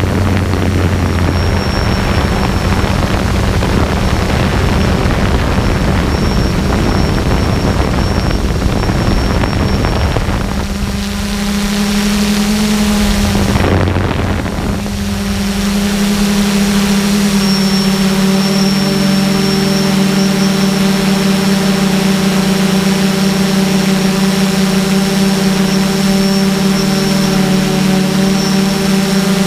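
Quadcopter drone's motors and propellers humming steadily, as picked up by its onboard camera, with a rushing, rumbling noise at first. About halfway through, the hum dips and shifts, then settles into a cleaner, steady pitched drone with a faint high whine above it.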